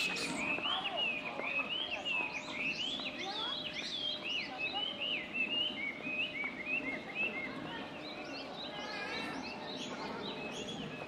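Many short, high, arching chirp-like animal calls overlapping several times a second, thinning out after about eight seconds.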